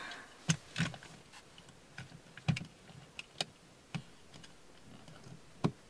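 Scattered clicks and taps from a GoPro camera and its suction-cup windshield mount being handled and pressed into place, about ten over several seconds, one of the sharpest near the end.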